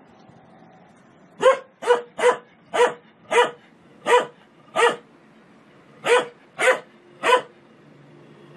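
A dog barking ten times: a run of seven barks about two a second, a short pause, then three more.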